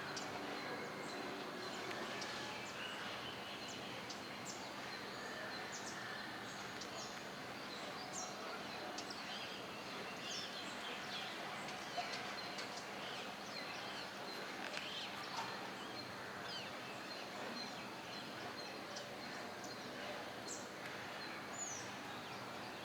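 Outdoor ambience with a steady hiss and birds giving many short, high chirps scattered throughout.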